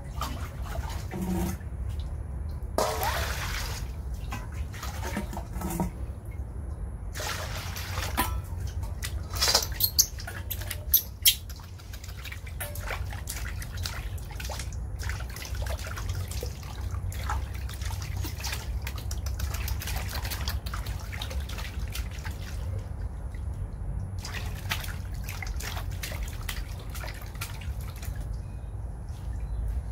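Water splashing and sloshing in a steel basin as a baby monkey is washed by hand, in irregular bursts with a few louder splashes near the middle, over a steady low hum.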